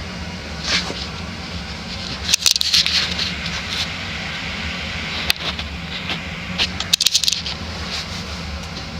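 Casablanca Utopian ceiling fan's large direct-drive spinner motor running steadily, with a low motor hum and a slight cyclic buzz under the whoosh of the blades. A few bursts of light metallic clicking and jingling come through, the busiest about two and a half seconds in and again about seven seconds in.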